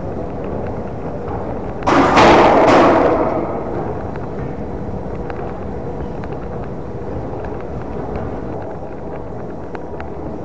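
A loud bang about two seconds in, an ATM kicked hard enough to knock its front panel open, ringing on for about a second in the station concourse over a steady background din and hum.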